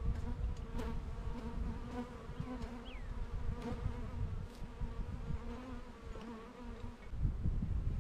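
Honeybees buzzing in numbers around an opened hive, a steady hum from a strong colony stirred up by having its hive boxes reversed. Wind on the microphone swells about seven seconds in.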